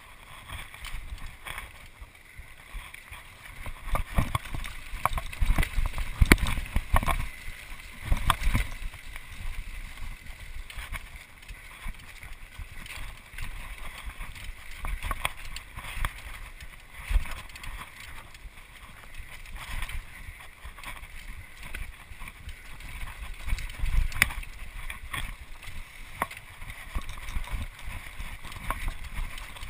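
Mountain bike rattling and clattering over roots and rocks on a rough dirt descent, with frequent sharp knocks from the frame and drivetrain, heaviest about four to nine seconds in and again near twenty-four seconds. Low wind rumble on the microphone runs underneath.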